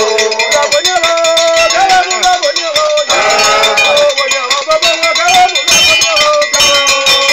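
Dense, rapid clanging of struck metal bells, the accompaniment to a masquerade dance, with a wavering melodic line carried over it.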